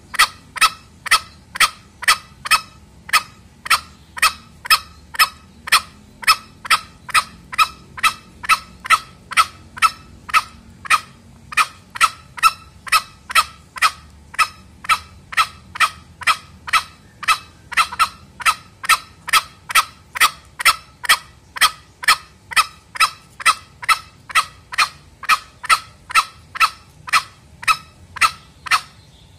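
Male green junglefowl lure call: short, sharp clucking calls repeated evenly, about two to three a second, without a pause.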